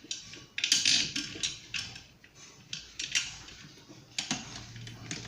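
Light clicks, knocks and short scrapes of a ceiling-fan blade and its screws being handled and fitted into the blade bracket. A low steady hum comes in near the end.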